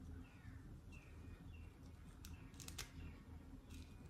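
Near silence, with a few faint sharp clicks of a plastic comb handled against the hair, and several faint short chirps that fall in pitch, spaced about half a second apart.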